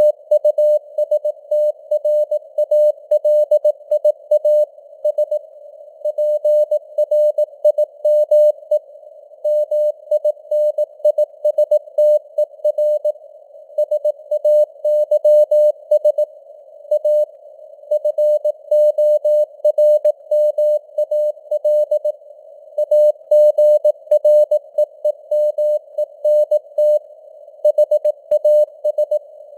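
Morse code (CW) at 18 words per minute: a single mid-pitched beep tone keyed on and off in dots and dashes, spelling out text. It sits in a narrow band of simulated radio static that stays audible in the gaps between characters.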